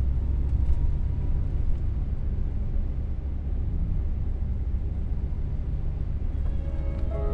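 Steady low rumble of a Dodge Grand Caravan minivan driving, engine and road noise heard from inside the cabin.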